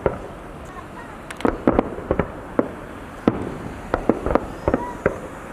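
Aerial fireworks bursting overhead: a dozen or more sharp bangs and pops at irregular intervals.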